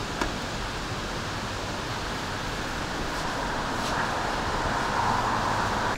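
Steady rushing background noise outdoors with a few faint clicks, swelling a little in the second half.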